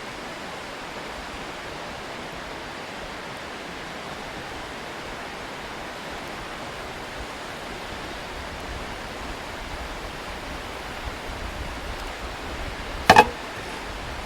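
A steady, even hiss with one brief, loud knock near the end.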